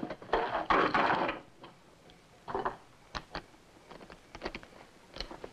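Handling noise inside a wooden wagon: a rush of rustling cloth and bedding near the start, then a few light wooden knocks and clicks spread through the rest.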